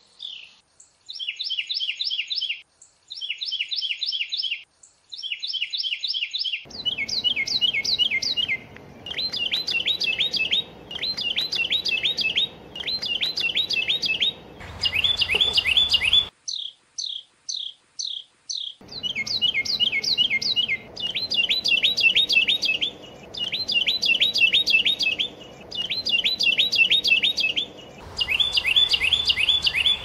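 Carolina wren singing: loud rolling phrases of quickly repeated notes, about one phrase every two seconds.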